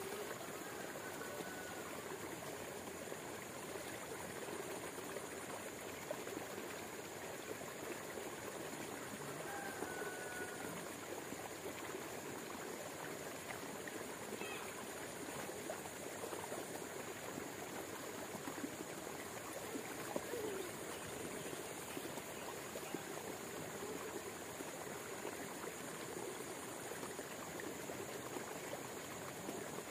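Steady rush of flowing water, like an irrigation channel, with a few faint short chirps.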